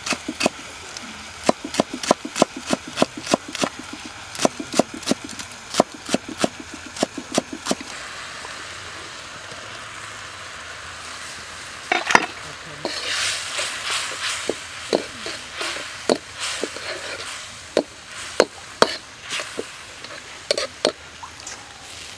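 Knife chopping spring onions on a wooden board, quick even strokes about two to three a second, stopping about eight seconds in. Then sauce frying and bubbling in a wok, with a sharp clatter about twelve seconds in as the chopped onions go in, and a louder sizzle with scattered clicks after it.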